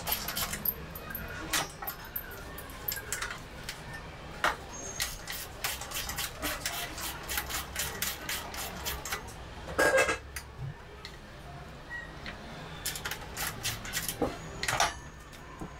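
Hand tool working the bolts of a motorcycle's steel side guard: a run of sharp metallic clicks and clinks, with a louder clunk about ten seconds in.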